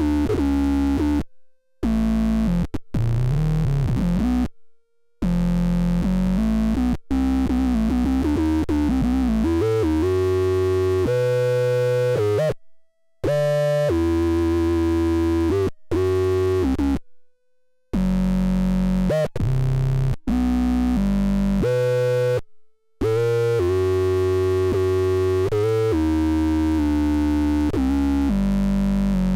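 Guitar-tracking synthesizer playing short phrases of changing notes through a CD4013 flip-flop octave divider, which adds square-wave tones one and two octaves below the input. The phrases stop abruptly into brief silences several times.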